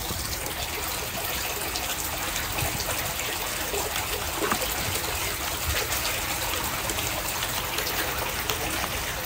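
Water trickling steadily, a continuous even wash with no pauses.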